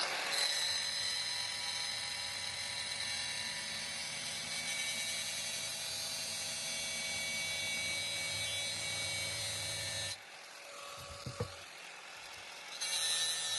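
Small power tool whining steadily as it cuts a piece off a metal bolt. About ten seconds in it stops abruptly, leaving a quieter stretch with a couple of faint knocks, and the cutting sound starts again near the end.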